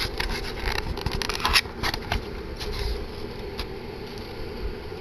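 Handling noise from a camcorder and its packaging: a quick run of clicks and rustles that thins out after about three and a half seconds, over a steady low background noise.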